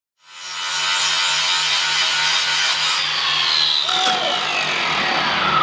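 Angle grinder grinding, a loud harsh hiss with a low pulsing hum under it. About halfway through, the wheel's whine begins falling steadily in pitch as it slows down.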